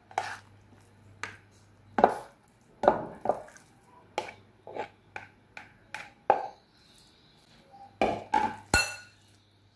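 Metal spoon knocking and scraping raw chicken mince out of a plastic bowl into a glass bowl: a string of sharp knocks, with one ringing clink of spoon on glass near the end.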